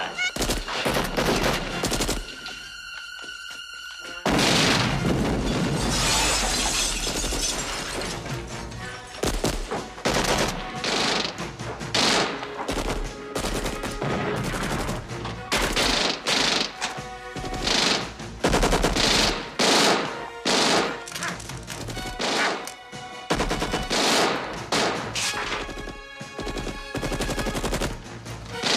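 Bursts of automatic gunfire from Uzi machine pistols, a rapid rattle of shots with a short lull about two seconds in, then a long continuous burst and repeated bursts about a second apart. A film score plays underneath.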